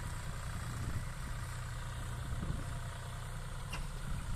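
John Deere tractor's diesel engine running steadily as it pulls a heavily overloaded trolley of jute sticks, a low, even rumble.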